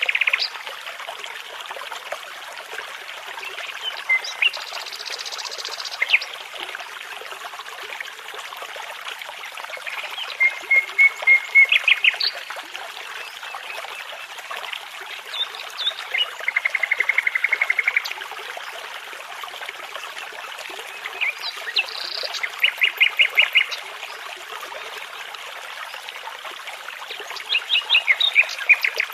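A songbird singing short, separate phrases of rapid repeated notes and trills, a few seconds apart, over the steady rushing of a babbling brook.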